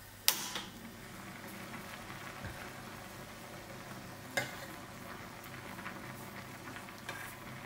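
Red lentils and water bubbling at a fast boil in a stainless steel saucepan, a steady hiss. A metal ladle knocks against the pan twice, sharply just after the start and more lightly about halfway through.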